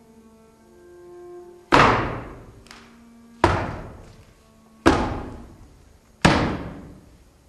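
Four heavy thuds at an even pace, about a second and a half apart, each dying away in a long reverberant tail, over soft sustained musical tones.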